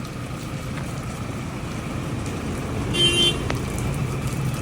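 A car engine idling steadily. About three seconds in there is a short high-pitched beep.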